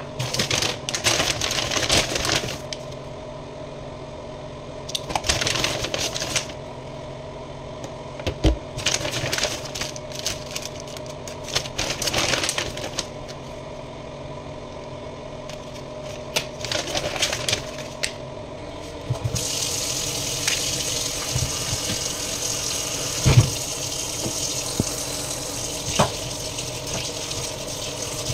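Plastic food packaging crinkling and rustling in short bursts, over a steady hum. About two-thirds of the way through, a kitchen tap starts running steadily into a stainless steel sink as hands are rinsed under it, with one dull knock shortly after.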